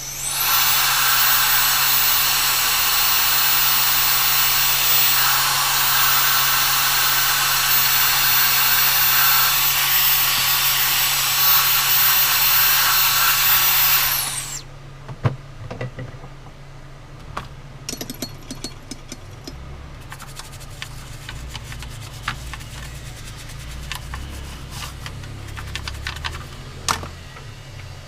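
A small high-speed motor tool running with a loud whine over a hiss, spinning up just at the start and winding down about halfway through. After that come scattered light clicks and taps over a steady low electrical hum.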